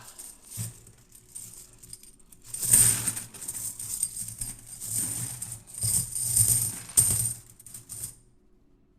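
Silver Franklin half dollars being poured out of a bag onto a pile of coins: a dense metallic clinking and jangling that starts about two and a half seconds in, swells and eases several times, and stops about eight seconds in.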